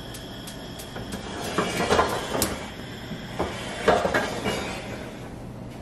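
A gas stove's igniter ticks its last couple of times as the burner lights, then a lidded stainless steel sauté pan is shifted and set down on the cast-iron grates: several metallic clanks and scrapes, with the lid rattling, loudest about two seconds in and again near four seconds.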